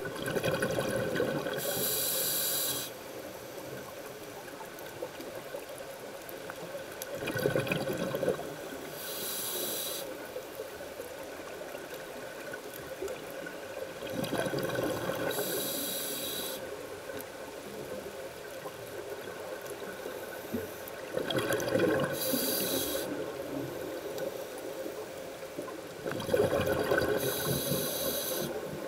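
Scuba diver breathing through a regulator underwater, in slow regular cycles about every six to seven seconds. Each breath is a bubbling gurgle followed by a higher hiss, five times in all, with a faint steady underwater hum in between.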